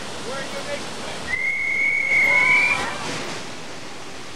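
Steady roar of a large waterfall's rushing water, with a single high whistle held for about a second and a half near the middle, rising slightly at its end.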